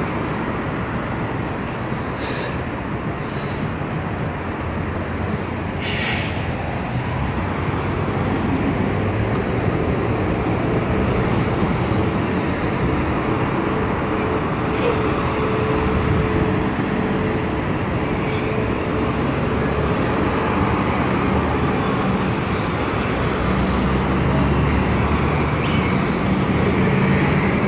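Street traffic dominated by New York City buses, their engines running as they pull through the intersection. There are short air-brake hisses about two and six seconds in.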